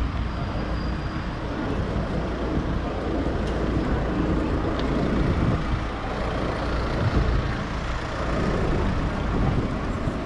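City street traffic: a steady mix of vehicle engines and tyre noise with a heavy low rumble.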